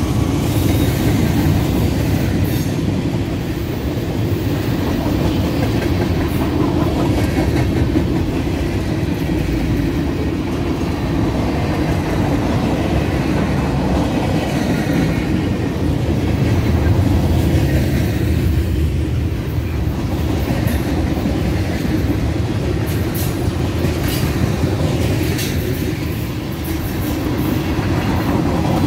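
Norfolk Southern freight cars, covered hoppers and centerbeam flatcars, rolling past at close range: a steady, loud rumble of steel wheels on the rails, with a few sharp clicks near the end.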